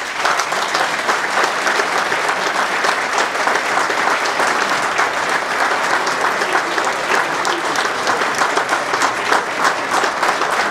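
Audience applauding steadily, with dense clapping from many hands.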